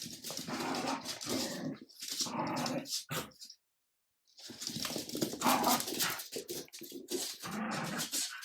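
A Jack Russell terrier and a French bulldog puppy play-fighting, with growling and scuffling in two long bouts broken by a short silence about halfway through.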